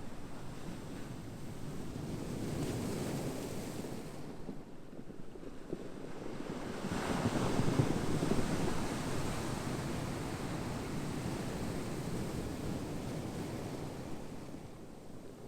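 Ocean surf washing in as waves, swelling twice, the larger wave loudest about seven to eight seconds in.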